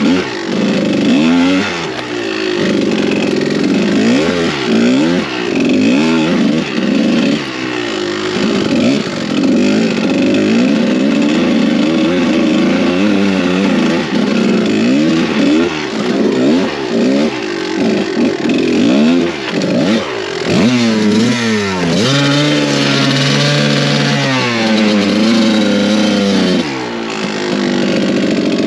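Kawasaki KDX200 two-stroke single-cylinder dirt bike engine revving up and down continuously under riding, its pitch swinging with the throttle. About three-quarters of the way through it holds a steadier pitch for a few seconds before rising and falling again.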